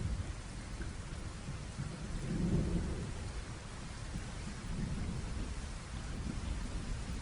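Steady rain, with a deep low rumble underneath that swells about two and a half seconds in.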